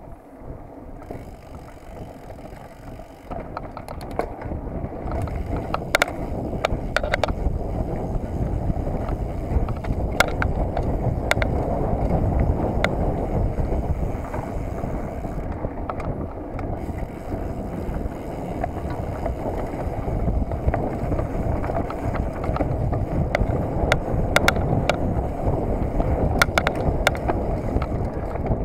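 Mountain bike riding fast down a dirt forest trail: wind buffeting the handlebar-mounted microphone and tyres rumbling over the dirt, with sharp rattles and clicks from the bike over bumps. It grows louder about three seconds in.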